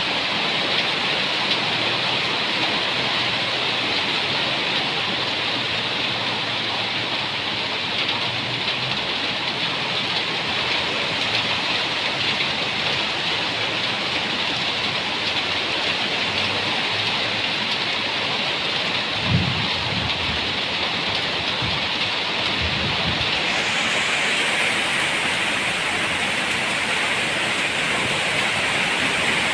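Steady heavy rain hissing throughout, with a few short low rumbles of thunder about two-thirds of the way in. The rain turns brighter and hissier near the end.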